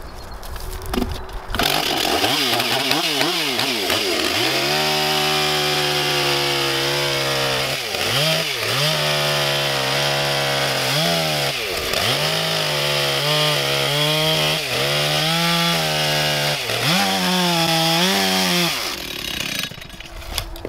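Two-stroke chainsaw revved up to full speed, then cutting into a log with the tip of its bar. The engine pitch dips again and again as the chain bogs in the wood, and recovers each time. Near the end the saw drops back toward idle.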